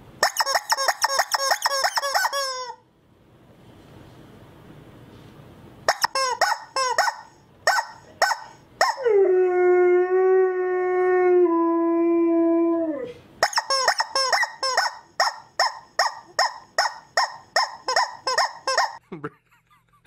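Rubber chicken toy squeaks dubbed over a husky: quick runs of short, shrill squeaks, about four or five a second, each dropping in pitch. In the middle comes one long squeal, held for about four seconds, that steps down in pitch before another run of squeaks.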